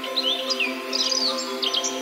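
Songbirds singing in quick chirps and short whistled glides over a sustained synthesizer chord drenched in reverb.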